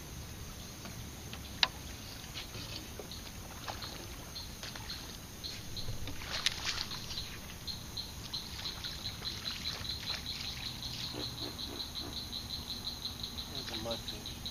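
Open marsh ambience with a rapid, even run of high chirps, about five a second, through the second half, and a few sharp clicks.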